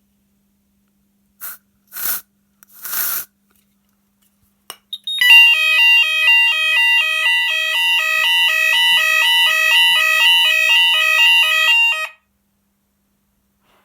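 Fire alarm sounders sounding a two-tone alarm, loud alternating high and low tones stacked over a steady note. It starts about five seconds in and cuts off abruptly about seven seconds later. Three short rushing noises come before it, around one and a half, two and three seconds in.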